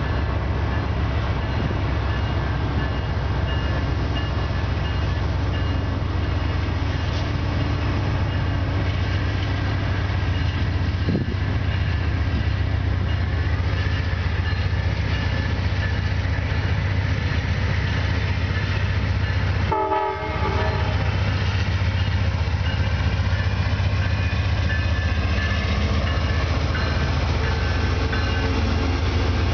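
GE P42 diesel locomotive's 16-cylinder engine running hard as the train pulls away from a station stop, a loud steady low drone that builds as the locomotive draws alongside. The sound drops out briefly about two-thirds of the way through.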